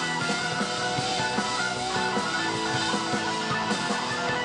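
Americana rock band playing live, an instrumental passage of electric guitar and keyboard with no singing.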